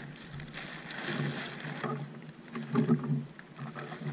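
Rustling and crumpling of a white sailcloth boat tent being pulled up over a dinghy's boom, with a few light knocks.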